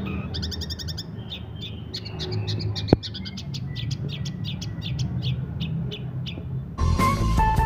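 Long-tailed shrike singing a fast, dense string of short, sharp chattering notes. A single sharp click comes about 3 s in, and a louder, harsh, noisy burst comes near the end.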